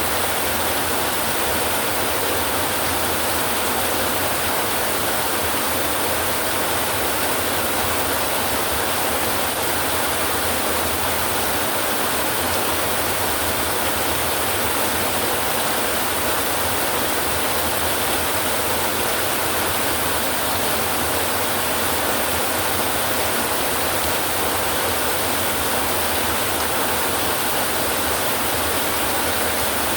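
Heavy rain falling on a tin roof, a steady, even hiss and patter with no breaks or thunder claps.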